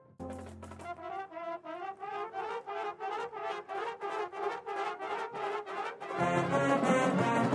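Drum and bugle corps brass playing live. A run of short, evenly spaced notes climbs gradually in pitch, then lower horns join and the full corps comes in louder about six seconds in.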